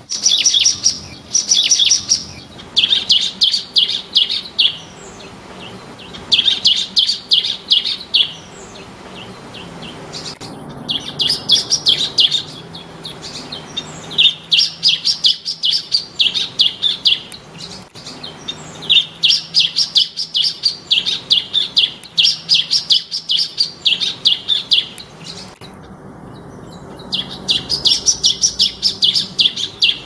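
Bar-winged prinia (ciblek) singing: repeated phrases of quick, high notes, each a second or two long, with short pauses between.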